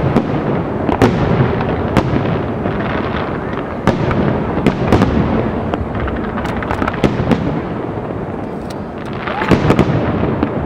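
Professional aerial fireworks display: shells bursting in quick succession, a dense barrage of sharp bangs over a continuous rumble, with a louder cluster of bangs near the end.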